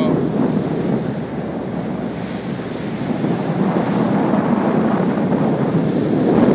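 Bow wave rushing and splashing along a tugboat's hull under way, mixed with wind buffeting the phone's microphone; steady, swelling slightly louder near the end.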